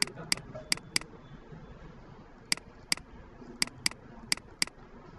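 Computer mouse button clicking, about ten sharp clicks mostly in quick pairs, like picking the first and opposite corners of selection boxes. There is a pause of about a second and a half after the first four clicks.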